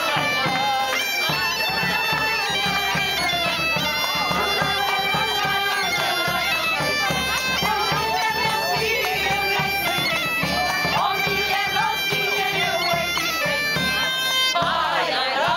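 Bagpipe playing a lively dance tune over its steady drone, with a wooden pipe and a drum playing along. Near the end the piping stops and voices break into song.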